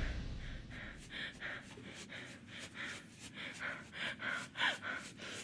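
A person breathing hard in short, quick breaths, about two a second, as if out of breath from running. At the start, the tail of a loud, low hit dies away.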